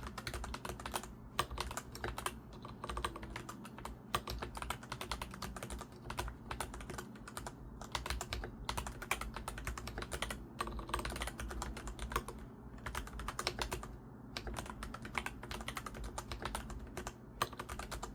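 Continuous fast typing on a Monster Gear Ninja87 mechanical keyboard with Gateron brown tactile switches and pudding keycaps, a dense run of soft keystroke clacks with a few short pauses, the rounded 'pebble-like' sound this switch is praised for.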